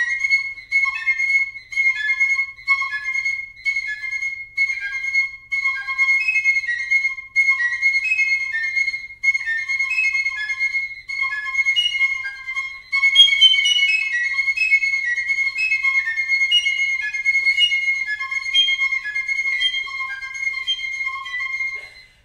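Solo piccolo playing a fast, repeating figure of high notes that keeps coming back to one held top note, with lower notes an octave below. The notes get louder and busier about thirteen seconds in.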